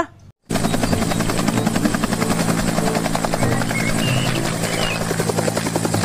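Bell UH-1 Huey helicopter in flight, its rotor blades beating rapidly and evenly over a steady low hum. It starts suddenly about half a second in, after a brief silence.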